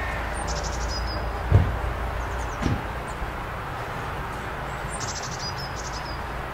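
Mountain-meadow ambience: a steady rushing background with a low rumble, short high, rapidly pulsed chirring trills several times, and two low thumps between one and three seconds in.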